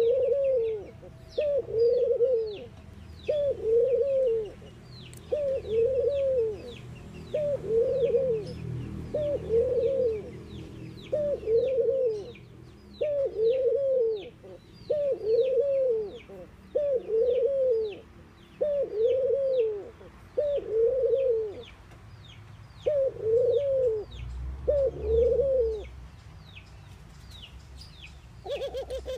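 Collared dove cooing over and over: a long series of short arched coos, about one a second, that stops near the end. Thin high chirps from another bird run underneath throughout.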